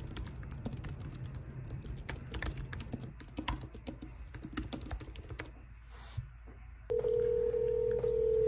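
Computer keyboard typing, a quick irregular run of key clicks for about six seconds. About seven seconds in, a steady telephone line tone starts and holds.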